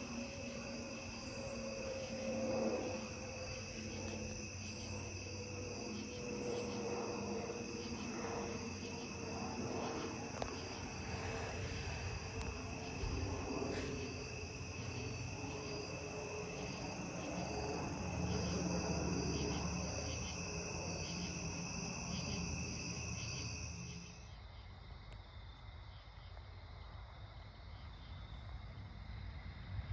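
Steady high-pitched trilling of a night insect chorus, over a faint low drone from a distant jet aircraft. About 24 s in, the sound cuts to a quieter chorus.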